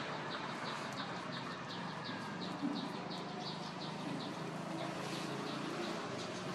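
Rapid, regular high-pitched chirping, about three chirps a second, from a small animal, over a steady background hiss. The chirping fades out about five seconds in.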